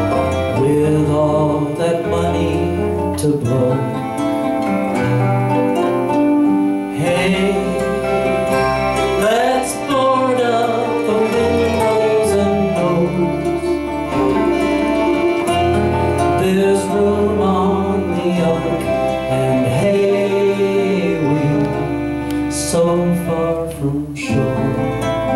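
Small acoustic band playing an instrumental break on nylon-string guitar, mandolin and bass, with a wavering melody line over steady chords and bass notes.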